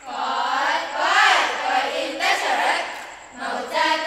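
A group of girls' voices chanting together in unison, the pitch rising and falling as one, with a brief drop in loudness about three seconds in.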